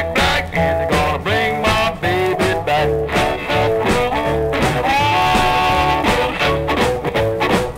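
A 1954 blues band recording, instrumental passage: a harmonica leads over guitar, bass and drums with a steady beat, holding one long note about two thirds of the way through.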